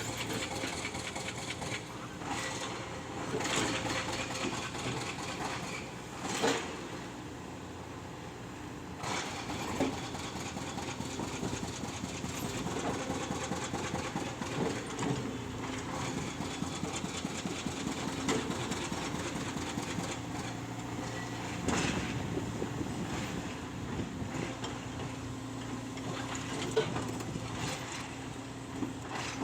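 Excavator diesel engine running steadily, with a few sharp metal knocks scattered through, about a second or more apart, during work on the excavator's tracks.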